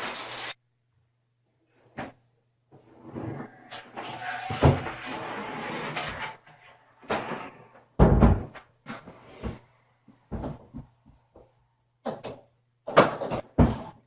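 Hollow plastic knocks and thumps of a lightweight portable twin-tub washing machine being handled and set down in a bathtub. There is a rustling, scraping stretch in the middle, and the loudest thumps come about eight seconds in and again near the end.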